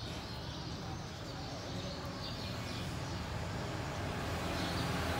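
Steady low background rumble that grows a little louder near the end, with a few faint, short high chirps.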